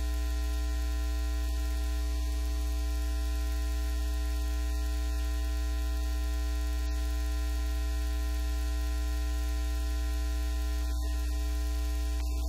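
Steady low electrical mains hum with an even hiss over it, a few fainter steady tones above the hum; no speech.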